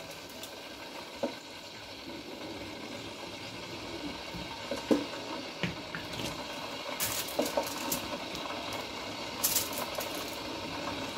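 Vegetable broth simmering in a large stainless steel pot as a whole raw duck is lowered in and pressed down under the liquid, with a few short splashes and light knocks against the pot.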